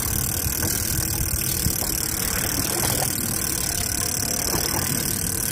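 Steady motor noise that runs on evenly, mixed with a dense hiss of wind and sea.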